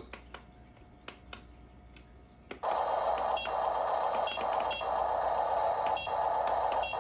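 A few faint button clicks, then about two and a half seconds in the Top Race RC dump truck's built-in sound effects switch on suddenly: a steady electronic engine sound from its small speaker, with short double beeps repeating about once a second.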